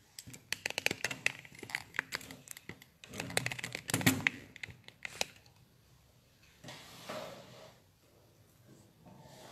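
Handling noise as a phone camera is picked up and turned around: a quick run of clicks and knocks for about five seconds, loudest around four seconds in, then a short rustle near seven seconds.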